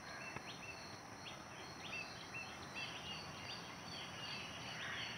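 Faint calls of distant birds, parrots among them: short, shrill chirps repeating every half second or so over a steady outdoor hiss.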